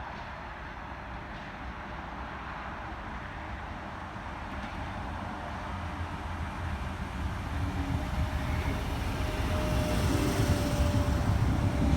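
Tangara electric train approaching, its rumble growing steadily louder over the second half, with a faint steady whine coming in about two-thirds of the way through.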